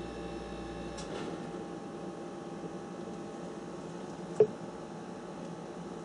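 Steady electrical hum with a faint tick about a second in and one sharp click a little past four seconds in.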